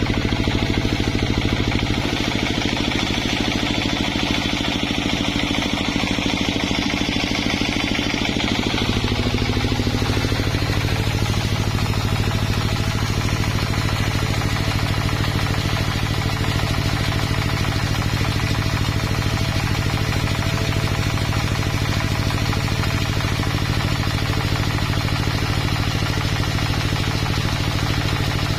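An engine running steadily. Its note shifts about nine seconds in and then holds level.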